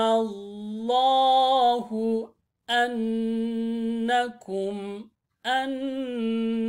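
Slow, melodic Quranic recitation by a single voice, chanting 'alimallahu annakum' with long drawn-out vowels held on steady notes. The phrases are broken by two short pauses.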